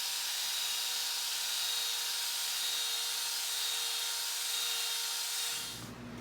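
Electric drill spinning a wire brush against the inside of a cast iron wok to polish the sanded surface: a steady whine with a hiss of bristles on metal that stops near the end.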